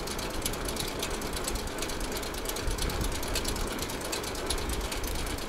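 Bicycle's rear freewheel hub ticking rapidly as the rider coasts without pedalling, over a low rumble of wind and road noise.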